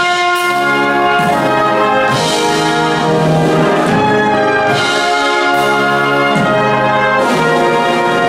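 Brass band playing slow, sustained chords, the harmony changing about once a second.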